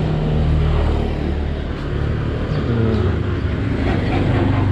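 A motor vehicle's engine running close by in street traffic, a steady low hum that shifts in pitch a little past halfway.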